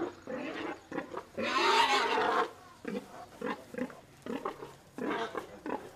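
A large pig squealing loudly for about a second, starting about one and a half seconds in, with short grunts repeating a few times a second around it, as several men grab and hold it down.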